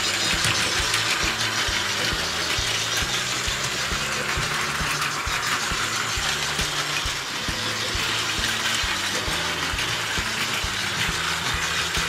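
Plarail battery-powered toy trains running on plastic track: a steady whirr of the small motors and gears, with a regular clicking of the wheels over the track joints about three times a second.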